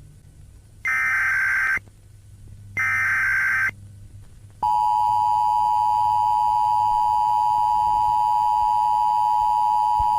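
Emergency Alert System tones: two harsh digital data bursts of about a second each, a second apart (the end of the SAME header), then from about four and a half seconds in the steady, loud two-tone EAS attention signal.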